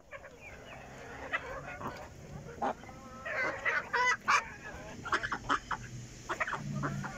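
Young Fayoumi chickens clucking and calling in short bursts, with a cluster of quick sharp calls and clicks around the middle.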